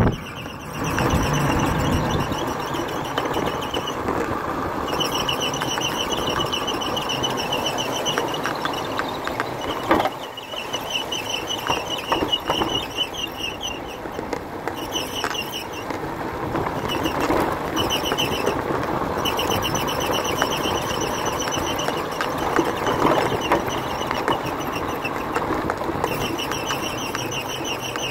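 Small motorbike running along a road, engine noise mixed with rushing air, heard from the back seat. A high, fast-pulsing buzz comes and goes several times over it.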